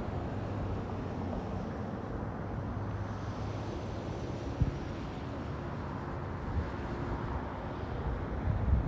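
Steady outdoor rumble of wind on the microphone and distant traffic, with no siren tone sounding.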